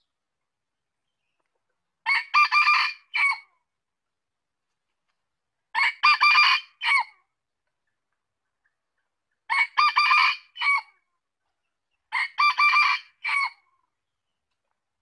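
Red junglefowl rooster crowing four times, one crow every three to four seconds. Each crow is short and broken into a few quick parts, ending in a separate clipped final note.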